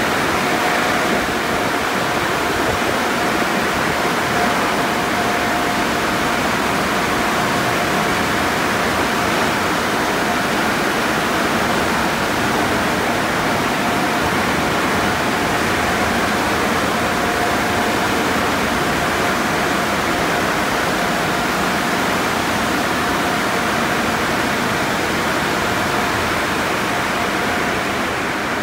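Conveyor car wash tunnel running: a steady rush of water spray and machinery noise, with a faint steady whine that comes and goes.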